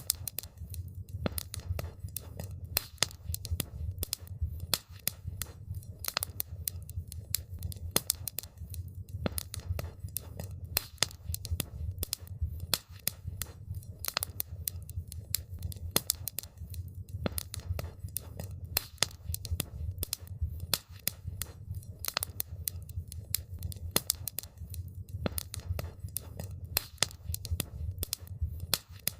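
Wood campfire crackling: dense, irregular sharp pops and snaps over a steady low rumble of the burning fire.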